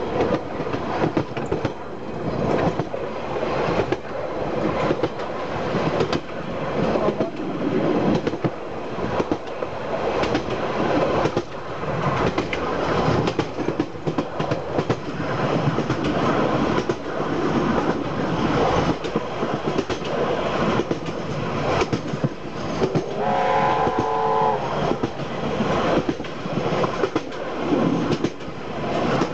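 Heritage train running along the track, its wheels clicking over the rail joints under a steady rumble. A little over two-thirds of the way through, the steam locomotive's chime whistle sounds once for about a second and a half.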